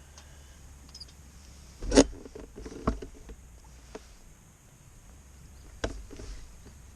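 A few sharp knocks and clatters over a low steady hum. The loudest comes about two seconds in, with more just after it and another near six seconds.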